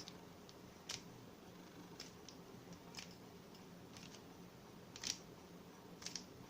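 Faint clicks of a Rubik's cube's plastic layers being turned by hand, about one turn a second, as the corner-twisting algorithm is worked through.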